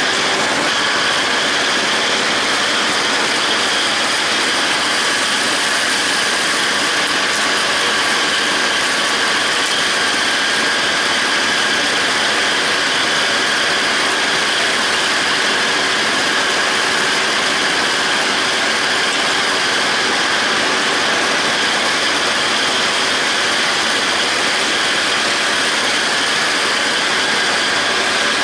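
John Deere 5320 tractor and John Deere 270 disc mower running steadily while mowing grass: the tractor's engine under load together with the whir of the mower's spinning cutter discs and gear drive, with a steady whine riding on top.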